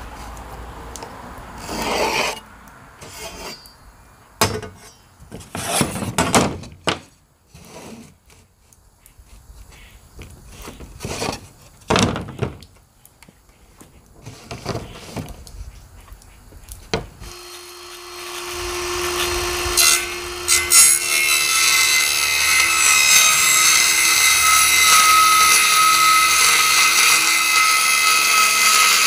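Scraping and knocking as a metal straightedge and pencil are worked over a plywood sheet, then, from about 17 seconds in, a power tool motor starts and runs steadily with a loud, even whirring noise.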